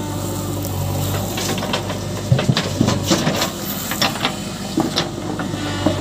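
JCB 3DX backhoe loader's diesel engine running steadily, with a run of sharp clanks and rattles from the backhoe arm and bucket through the middle as it digs and dumps soil.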